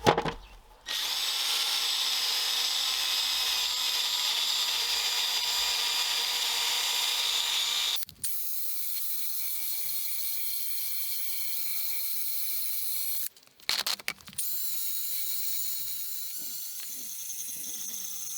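Handheld electric power tool running steadily with a high-pitched motor whine, after a sharp knock at the start. It cuts out briefly about eight seconds in and again near thirteen seconds, running on a little quieter after the first stop.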